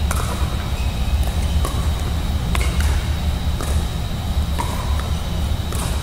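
Pickleball rally: the hollow plastic Franklin X-40 ball popping off paddles and the court, sharp pops about once a second, over a steady low hum.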